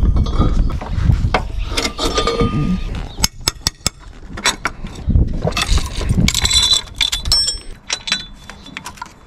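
A hand ratchet clicking and steel wrenches clinking and ringing against each other as a socket wrench and a cam-sprocket holding tool are set on a camshaft pulley bolt, with rustling and knocks from handling.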